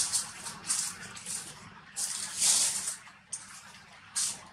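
Dry fallen leaves rustling and crackling in short, irregular bursts, with a longer, louder rustle about two seconds in.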